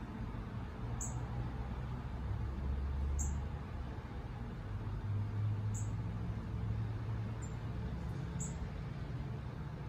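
Short, very high, thin bird call notes repeated every one to two seconds, from a small songbird, over a low steady rumble.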